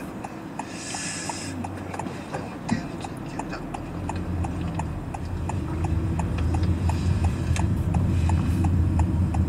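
Car's turn-signal indicator ticking about three times a second, with a short hiss about a second in. Low engine and road noise rises from about four seconds in as the car pulls away.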